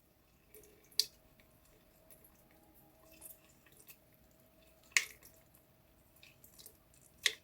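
Lemon going into a blender jar: three sharp taps, about a second in, around five seconds and near the end, with small wet sounds between them.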